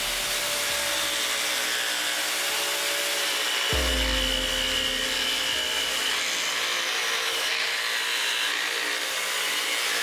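A table-mounted scroll-type saw running, its thin blade cutting a curve through plywood, under background music with a low thump about four seconds in.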